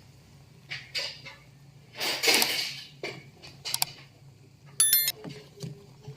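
Kitchen handling noises around a pot of boiling jamu: scattered scrapes and knocks, a louder rustling scrape about two seconds in, and a short ringing clink about five seconds in, over a faint steady low hum.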